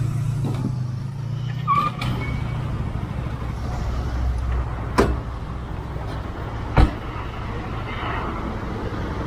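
Motorcycle engine running steadily at low revs, with two sharp knocks about two seconds apart near the middle.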